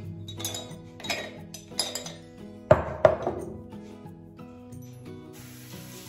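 Ceramic toothbrush cup and toothbrushes clinking as they are handled and set down on a tiled counter, the loudest two knocks close together near the middle, over background music. A tap starts running about five seconds in.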